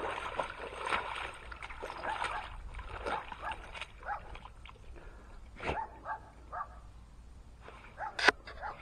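Giant Schnauzer rolling in a muddy puddle, whining in short high calls again and again, with splashing of muddy water in the first couple of seconds and a sharp slap near the end.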